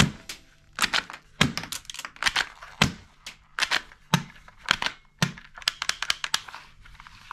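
Sharp plastic clicks and clacks from a toy gun's mechanism, coming in irregular clusters of one to four, about twenty over several seconds.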